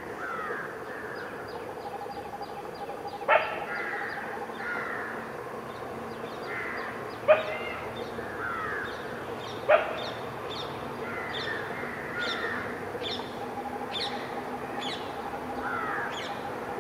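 Crows cawing three short, loud times, about three, seven and ten seconds in, over steady chirping of small birds and a faint steady drone.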